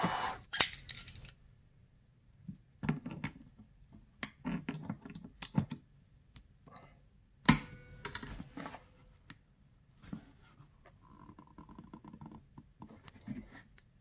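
A gas torch's steady hiss cuts off just as it begins. Then comes a string of scattered metallic clicks, taps and clinks from hand tools being handled against metal and set down, with sharp ones about half a second in and about seven and a half seconds in.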